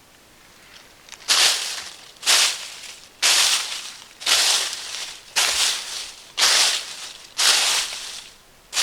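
Footsteps crunching in dry leaf litter, slow and even at about one step a second, about eight steps starting a second in.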